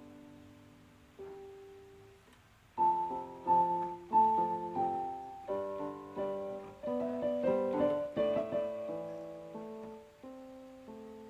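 Piano music: a few quiet notes at first, then a fuller, louder run of notes from about three seconds in.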